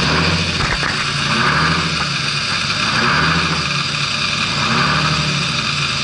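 Old truck's engine idling just after a cold start, at about 500 rpm, heard from inside the cab. Its low note swells and eases about every second and a half.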